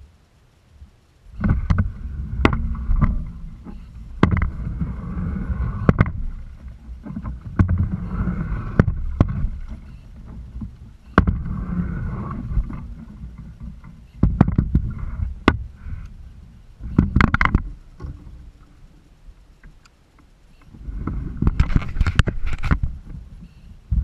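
Kayak being paddled: a two-bladed paddle pulling through the water in repeated strokes every couple of seconds, with water washing against the hull and sharp knocks and clicks of the paddle and gear against the kayak.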